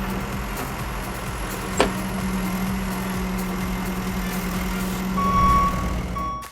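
A steady low mechanical hum, with a single sharp click about two seconds in and a short high steady beep, heard twice near the end. It cuts off suddenly.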